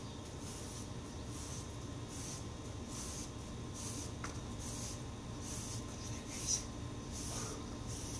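Long-handled broom sweeping a paved floor: its bristles scrape stroke after stroke, about one stroke every three quarters of a second. A steady low hum runs underneath.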